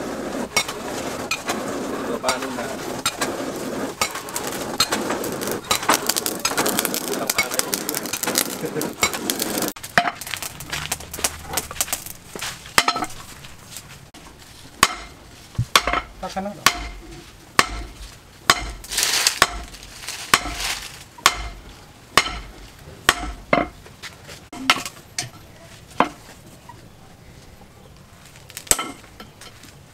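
A dense crackling, clattering noise for about the first ten seconds, then hand-hammer blows on a red-hot piece of car axle steel on a stump anvil, roughly one a second, with a pause before two last blows near the end.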